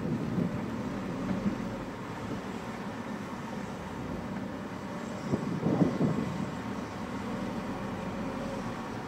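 Car cabin noise while driving slowly: a steady low engine and tyre rumble, with a louder, rougher stretch around five to six seconds in.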